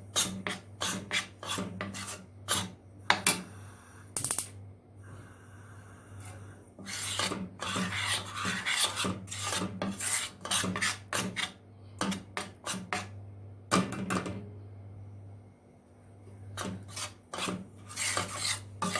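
A utensil scraping and stirring flour as it toasts in ghee in the pan, in repeated dry rasping strokes. This is the roux stage, cooked until the raw-flour smell is gone. A steady low hum runs underneath.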